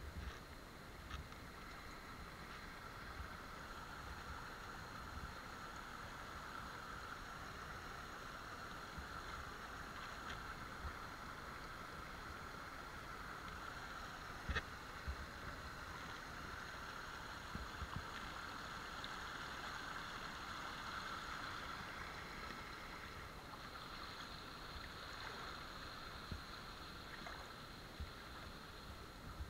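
Rubber wellington boots wading through shallow running water, with water sloshing steadily around them. An occasional sharper splash stands out, the loudest about fifteen seconds in.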